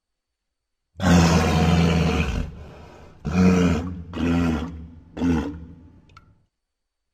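Pachyrhinosaurus creature sound effect. A long, deep roar starts about a second in and trails off, followed by three shorter calls, each briefer than the last.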